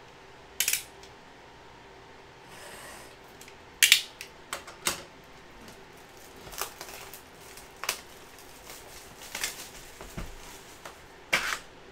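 Utility knife slicing through the wrapping and seals of a cardboard trading-card box, with handling of the box. The sound comes as scattered sharp clicks and scrapes, the loudest about four seconds in.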